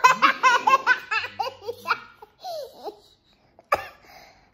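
A three-year-old child laughing in quick bursts that trail off after about two seconds. There is a single sharp click near the end.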